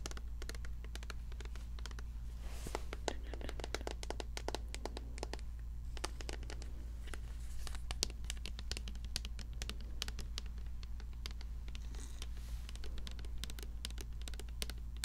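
Close-miked fingernails tapping and scratching on a plastic shampoo bottle: many quick, irregular clicks and scrapes.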